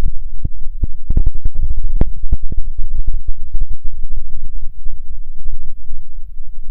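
Wind buffeting the microphone: a loud, low rumble with irregular crackling gusts that overload the recording.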